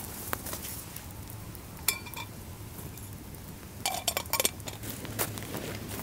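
Metal clinking: a short ringing clink about two seconds in, then a quick cluster of rattling clicks about four seconds in, over the faint crackle of a wood campfire.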